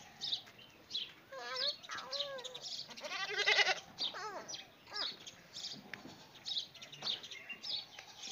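A goat bleating several times, the longest call about three seconds in, wavering strongly. Small birds chirp in short high notes throughout.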